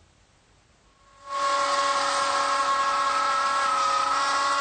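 Router mounted under a router table cutting a groove in a pine board with a 3/8-inch grooving bit: a loud, steady high whine that starts about a second in and dips slightly in pitch under the load of the cut.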